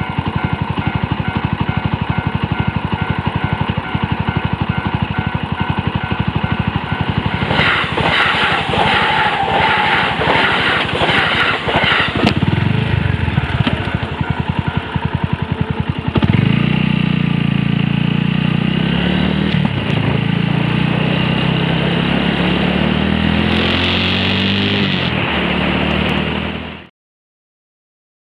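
Suzuki Grasstracker BigBoy's single-cylinder engine idling at a railway level crossing while the crossing's warning bell rings in evenly repeated strokes. About halfway through, a louder low drone comes in and slowly rises in pitch. All sound cuts off abruptly near the end.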